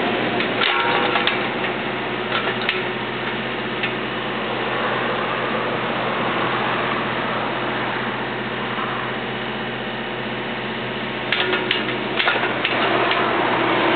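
Kubota KX91-2 mini excavator's diesel engine running steadily under load while the boom and upper house swing. A few sharp clanks come about eleven to twelve seconds in.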